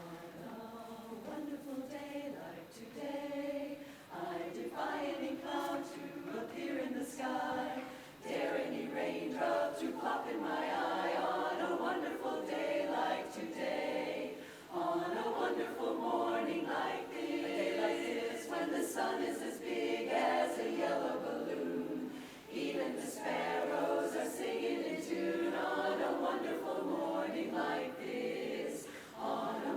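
A 23-voice a cappella chorus singing in close harmony, in sustained phrases with short breaks between them, fuller and louder from about eight seconds in.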